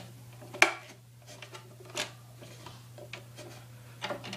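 Hard plastic clicks from a cricket keeper as its lid is set on and handled: one sharp click about half a second in, a softer one around two seconds, and a few faint taps near the end.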